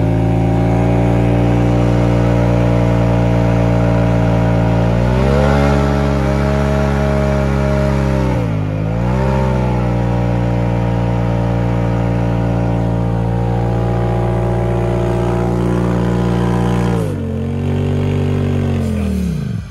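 Polaris RZR Turbo's turbocharged twin-cylinder engine held at high revs in a stationary burnout, its tires spinning. The revs dip briefly and recover about halfway through, drop again near the end, then fall away as the throttle comes off.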